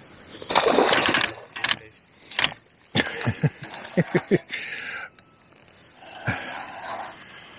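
Fishing reel being wound and the rod handled while playing a hooked barbel, heard as irregular bursts of winding and scraping with sharp clicks. The loudest burst comes about half a second in, and a run of short clicks follows around the middle.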